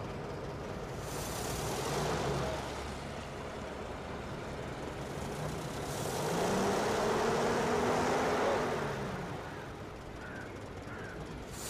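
Street traffic: motor vehicles drive past, one swelling and fading about two seconds in and a louder one around seven to nine seconds, their engine note rising and then falling as they pass.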